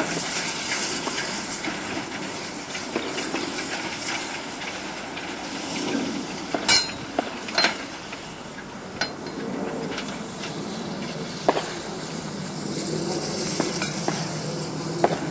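Hunslet diesel shunting locomotive running steadily as it draws away along the siding over the pointwork, with a handful of sharp clicks and knocks from its wheels on the track.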